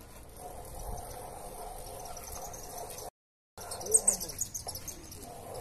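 Birds chirping over a steady background hum. Sound drops out completely for a moment about three seconds in, and a quick cluster of sharp clicks follows about a second later.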